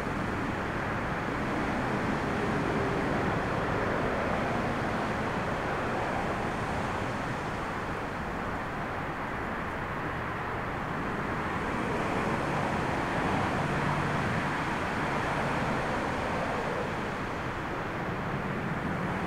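Steady, even rumble of a twin-engine jet airliner's engines on final approach, mixed with storm wind, swelling and easing gently a couple of times.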